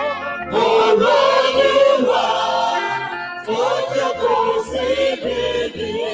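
Church praise team singing a gospel worship song into microphones, lead voices with a choir joining, over a bass line from the band. The singing comes in two long phrases, the first about half a second in and the second about three and a half seconds in.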